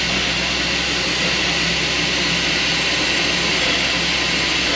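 Heisler geared steam locomotive standing at rest, giving off a steady, even hiss of steam over a low hum.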